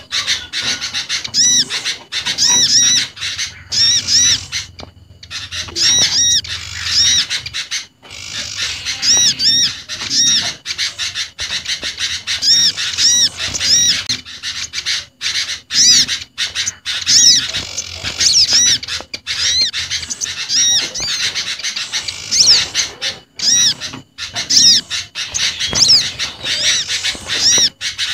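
Bird-lure recording of several small garden birds calling at once, among them the agitated calls of sooty-headed bulbuls and prinia calls. The calls are many quick, high, arched chirps in close overlapping series, with a brief gap about five seconds in.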